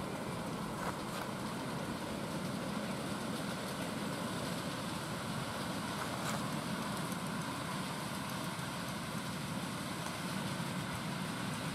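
A 7¼ inch gauge live-steam model of a Queensland Rail BB18¼ class locomotive running along the track with its riding cars, making a steady running noise with a few faint clicks.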